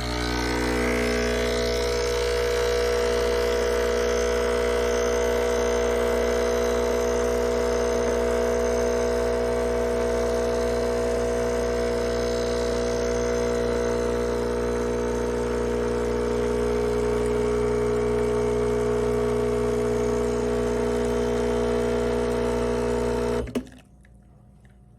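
Sage Barista Express espresso machine running with a loud, steady electric hum, which cuts off abruptly near the end.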